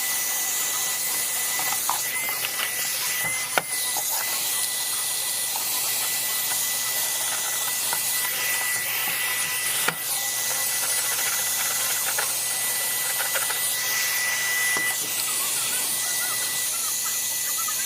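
A small high-speed electric motor whines steadily at one high pitch over a strong rush of air, as when dust is blown or sucked out of a NAS. A few short knocks come through, one a few seconds in and one about ten seconds in.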